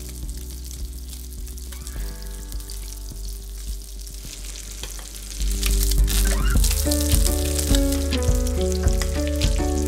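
Redfish fillet frying in hot oil in a pan, a steady sizzle with fine crackles. Background music plays under it and gets louder about five and a half seconds in.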